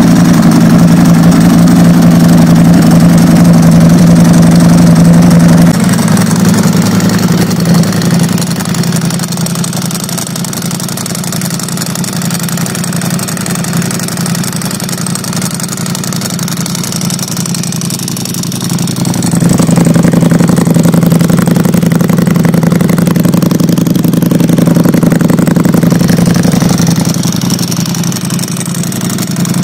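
Ducati Streetfighter V4S's 1103 cc Desmosedici Stradale V4 engine idling at a steady pitch. It is louder for the first few seconds and again from about twenty seconds in, and quieter in between.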